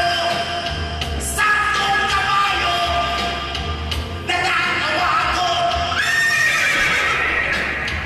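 Rock song playing, a female singer's voice giving high, whinnying cries like a horse over the band.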